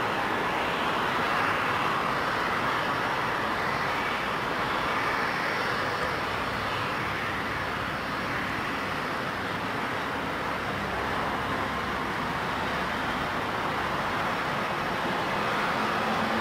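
Boeing 717 airliners taxiing at idle thrust, their rear-mounted Rolls-Royce BR715 turbofans giving a steady, even rush of jet noise that does not rise or fall.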